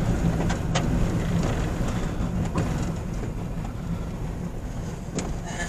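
Car driving slowly on a gravel dirt road, heard from inside the cabin: a steady low rumble of engine and tyres. There are two sharp knocks, one about a second in and one near the end.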